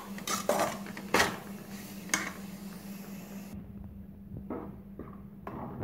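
Perforated steel spatula stirring and scraping grated coconut against a steel pan while it fries in ghee, with scattered scrapes and light knocks on the metal over a steady low hum.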